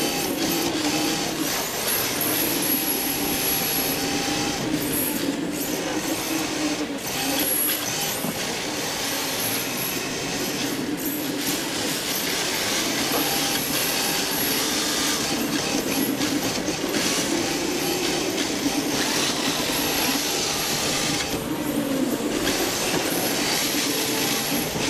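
Onboard sound of a rear-wheel-drive RC drift car: the electric motor and gears whining, rising and falling in pitch with the throttle, over a steady hiss of the hard drift tyres sliding on the smooth floor.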